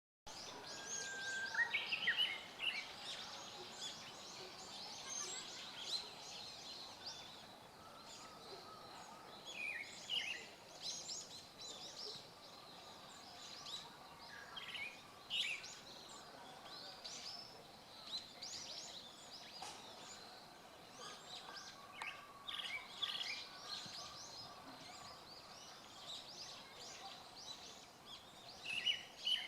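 A thrush singing short phrases of a few clear whistled notes, repeated every several seconds; the recordist takes it for a pale thrush, though he finds it also like a brown-headed or eyebrowed thrush. Other small birds chirp high and faint throughout.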